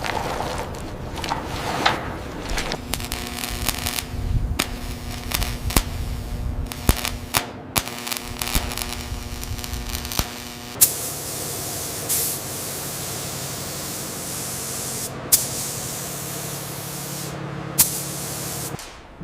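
Work sounds from a motor-driven tool: a steady running note with scattered clicks and knocks, then several seconds of even hissing over a low hum that cuts off just before the end.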